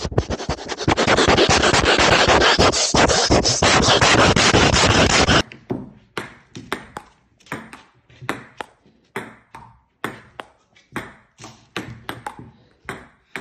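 For about five seconds there is loud scraping and rubbing on the microphone as a cat presses its face against the camera. This cuts off suddenly. Then a ping-pong ball clicks on a table-tennis table and paddle, about twice a second.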